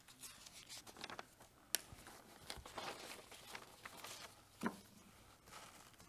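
Faint paper rustling as pages are handled at a pulpit, with a sharp click a little under two seconds in and a short thump a little past the middle.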